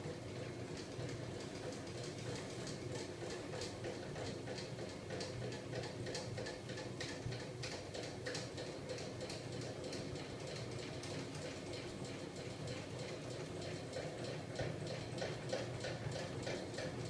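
Homemade magnet-driven flywheel and crankshaft rig, turned by a small 12-volt electric motor, running with a steady hum and a rapid, regular ticking from its moving linkage.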